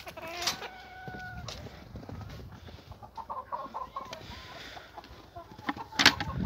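Domestic hens clucking as they feed, with one drawn-out call about half a second in and scattered short clucks later. A sharp knock near the end is the loudest sound.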